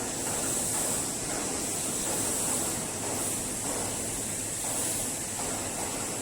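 Steady factory background noise: an even, unbroken hiss with a bright high band and no distinct events.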